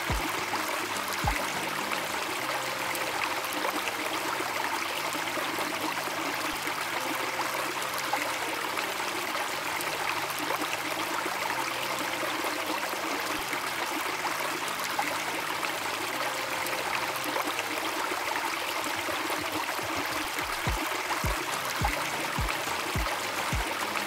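A shallow, fast mountain river rushing steadily over stones and small rapids. Faint background music runs underneath, and its low regular beat comes in near the end.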